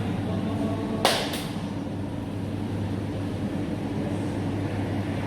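Steady low mechanical hum, like a motor or engine running, with two sharp cracks in quick succession about a second in.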